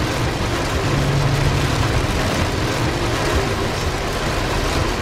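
Steady rush of heavy wind-driven rain and road spray as cars drive along a highway in a tropical storm, with a low engine hum under it.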